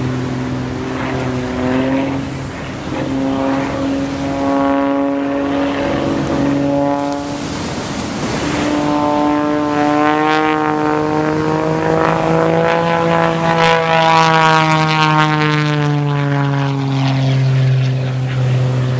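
Single-engine propeller aerobatic plane's piston engine and propeller droning through climbs and dives. The pitch shifts several times, breaks into a rough rush about eight seconds in, then rises and slowly falls near the end.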